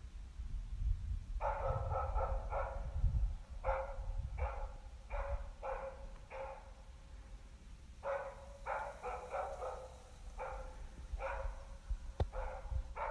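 Yakutian laika barking at a moose, the working bark of a hunting laika holding the moose at bay. The barks come in quick runs of several and singly, all at the same pitch.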